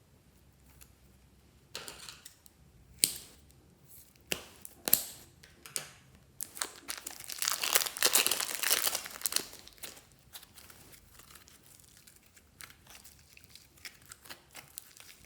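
Slime being squished and stretched by hand, giving sticky crackles and pops. The crackling grows dense and loudest in the middle, then thins out to scattered pops.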